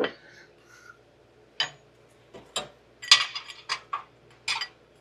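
Irregular sharp metallic clicks and clinks of hand tools and metal parts being handled and fitted under the car, about eight in all, with a quick cluster about three seconds in.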